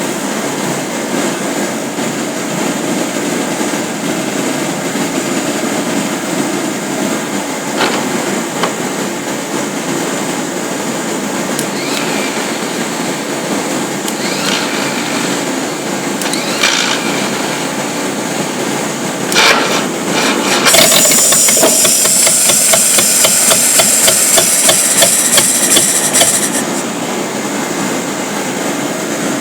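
1949 Studebaker 2R5 truck's Commander flathead six running, with a vacuum leak that keeps it from running unless the carburettor is fully choked. A few sharp knocks sound through the middle, and a loud hiss with rapid pulses in it comes in about two-thirds of the way through and lasts about five seconds.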